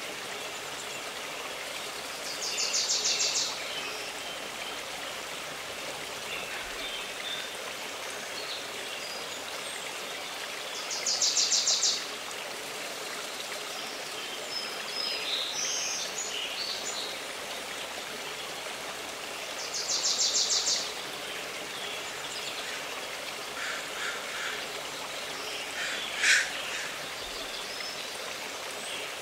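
A stream running steadily, with a songbird giving a short, rapid, high trill three times, about eight or nine seconds apart, and other birds chirping now and then in the second half.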